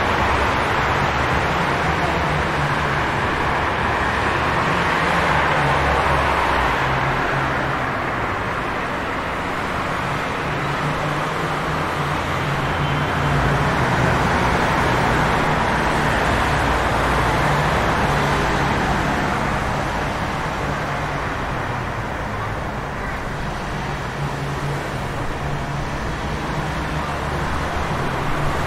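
Traffic on a rain-wet city street: a continuous hiss of tyres on the wet road that slowly swells and fades as vehicles pass, over a low steady engine hum.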